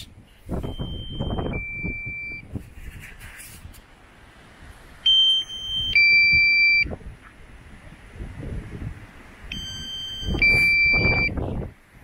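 DJI Mavic Mini remote controller sounding its low-battery warning: three two-tone beeps, each a higher tone stepping down to a lower one, the first faint about half a second in, then loud ones about five and nine and a half seconds in. Gusty wind rumbles on the microphone underneath.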